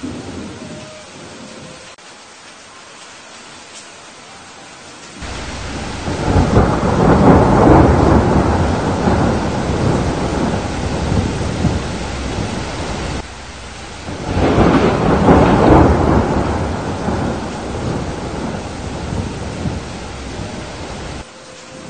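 Thunderstorm: steady heavy rain with two long rolls of thunder. The first starts suddenly about five seconds in and the second about fourteen seconds in; each swells to a loud peak, slowly fades, then cuts off abruptly.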